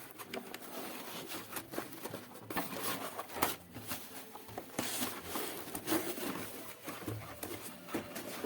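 Packaging being handled as a keyboard is unpacked: irregular rustling, crinkling and light knocks.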